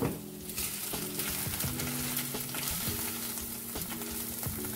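An egg omelet wrapped around bread sizzling steadily in a frying pan. Right at the start there is a brief tap of the metal spatula as the omelet is turned over.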